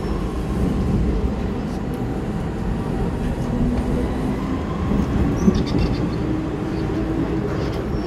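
MTR M-Train (Metro-Cammell electric multiple unit) running, heard from inside the passenger car: a steady rumble of wheels and running gear. A faint tone comes and goes in the middle, and there is one short click about five and a half seconds in.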